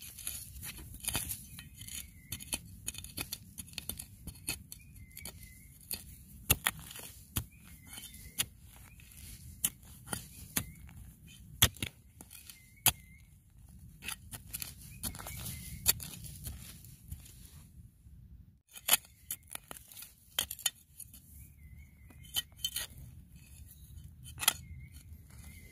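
Dry leaves and twigs crackling and snapping in irregular sharp clicks, with a short chirping call repeating about every three seconds.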